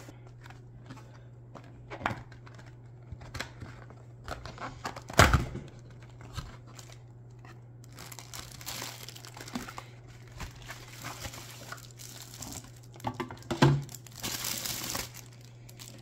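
Cardboard box and plastic wrapping rustling and crinkling as a boxed sealed lead-acid battery is unpacked, with scattered knocks and a louder thump about five seconds in. A steady low hum sits underneath.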